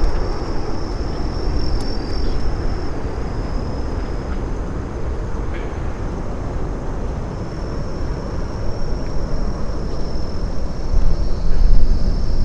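Boeing 747-8F freighter's four GEnx-2B turbofans at takeoff power as it climbs away, a steady deep jet rumble that swells louder again near the end.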